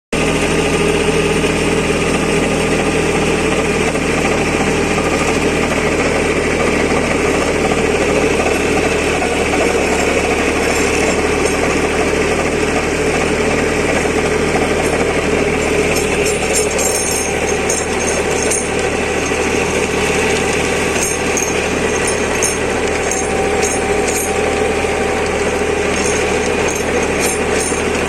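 Sonalika DI 20 mini tractor's diesel engine running steadily at a constant speed, with faint irregular clicking from about halfway through.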